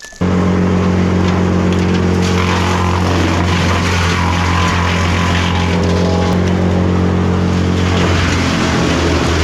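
A large engine running steadily at constant high speed, cutting in abruptly just after the start.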